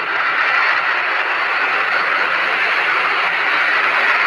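Airbus A330 airliner on final approach, its jet engines heard as a steady, loud rushing hiss.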